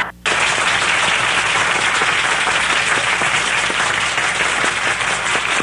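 Audience applause: many hands clapping in a dense, steady patter, cutting in a split second after a brief gap at the start.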